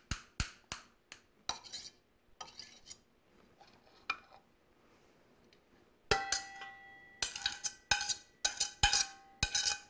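Table knife chopping boiled eggs on a ceramic plate, a quick run of sharp taps. After a lull, from about six seconds in, the knife and plate knock against a stainless steel mixing bowl as the egg is scraped in, each clink ringing on briefly.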